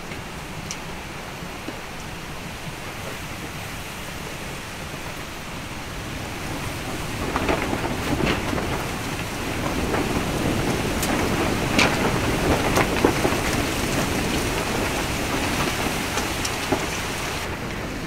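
Strong gusty wind buffeting a polycotton (TC) tent, with the fabric flapping and several sharp snaps. The rush swells as a gust builds about seven seconds in and stays loud to the end.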